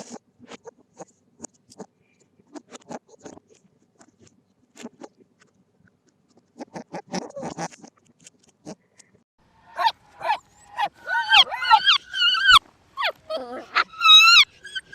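Faint scattered clicks and rustling, then about ten seconds in a run of short, high animal calls that rise and fall in pitch.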